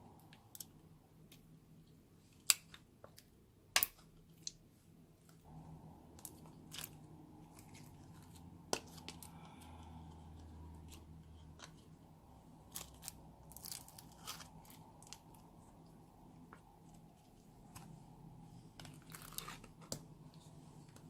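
Old slimes being mixed and squished together, giving irregular crackling pops and crunches.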